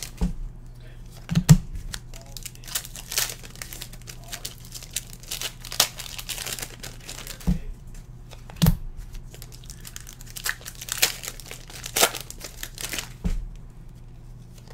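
Foil trading-card pack wrappers crinkling and tearing as packs are opened and the cards handled, in irregular crackles, with a few dull thumps.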